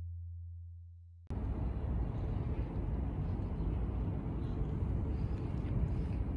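A low humming tone from the title-card sound effect fades away, then cuts off abruptly about a second in. Steady outdoor background noise follows: a low rumble with a faint hiss, from city ambience and air moving over the microphone.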